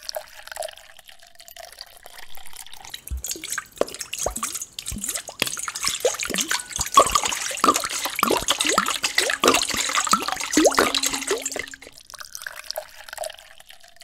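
Water poured in a thin stream into a small clear plastic tank, splashing and dripping as it fills. It builds about three seconds in and stops about two seconds before the end.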